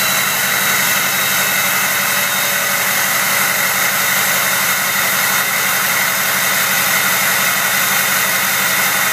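Ford F-250 turbodiesel engine running steadily through a 4-inch exhaust, with the turbocharger's high whistle over the diesel rumble.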